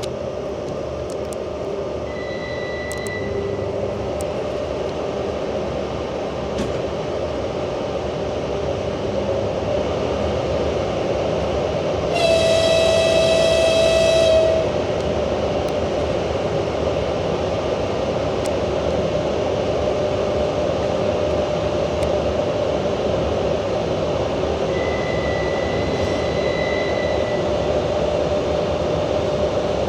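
Passenger train wheels clacking rhythmically over jointed rail track, heard from inside the carriage with a steady rumble. A train horn sounds for about two seconds near the middle.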